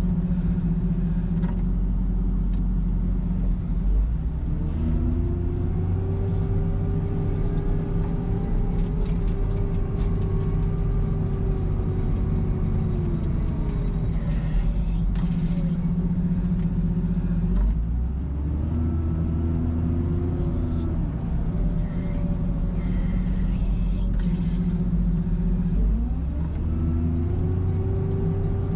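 CASE 721E wheel loader's diesel engine heard from the cab, rising in revs under load while pushing snow and dropping back, three times over. Short bursts of high hiss come and go over the engine.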